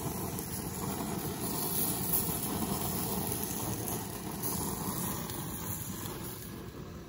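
Steady rushing hiss of a lit gas grill's burners, easing slightly near the end.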